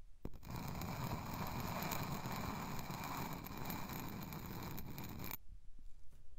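Kinetic sand scraping and crunching against a metal tube moved across it: a steady, gritty rustle for about five seconds that cuts off suddenly near the end.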